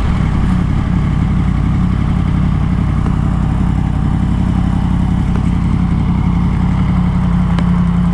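Yamaha MT-10's crossplane inline-four engine idling steadily through an Akrapovic exhaust.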